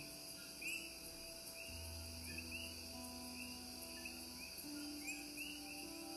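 Quiet ambient music: long held low notes that shift pitch every second or two, with a deep drone entering near the start. Under it, a steady high hiss and repeated short chirps like crickets.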